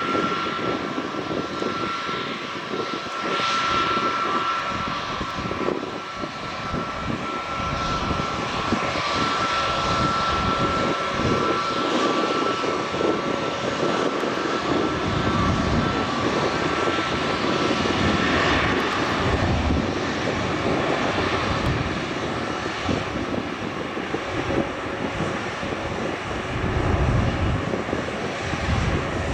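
Airbus A321neo's Pratt & Whitney PW1100G geared turbofans running at taxi power: a steady high whine over a rushing rumble. The whine fades about two-thirds of the way through.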